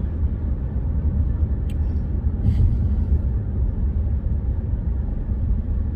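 Steady low rumble of a car heard from inside the cabin, with a couple of faint short sounds about two seconds in.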